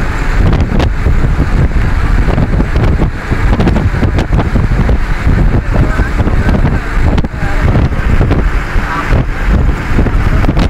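Wind buffeting the microphone at the open window of a moving vehicle, in loud uneven gusts over the steady rumble of the engine and tyres on the road.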